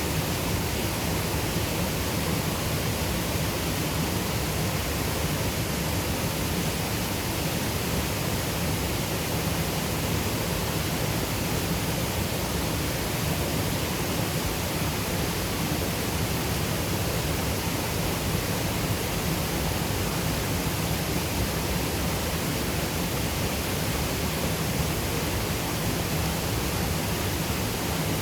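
Waterfall on the Water of Nevis at the Lower Falls: water pouring and crashing, a steady, unbroken roar.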